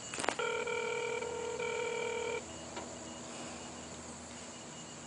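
Telephone ringback heard over the line while a call rings out: a click, then one steady ring tone lasting about two seconds, over faint line hiss.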